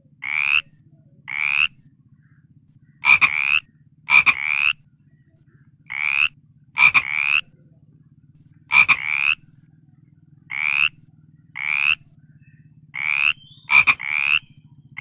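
A frog calling: about fifteen short, rising croaks, some starting with a sharp click and several coming in quick pairs, at irregular intervals. A low, steady buzz runs underneath.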